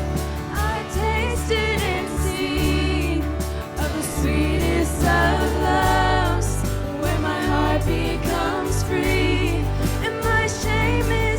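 Live contemporary worship band playing a song, with singing over a steady bass and drum beat.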